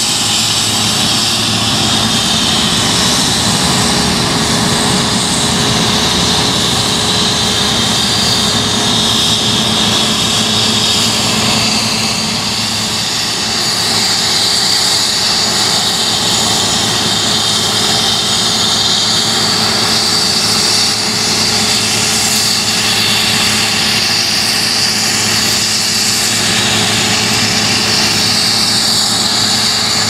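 Claas Lexion 560 combine harvester running under load while harvesting wheat: a steady drone of engine and threshing machinery with a constant hum and a high whine.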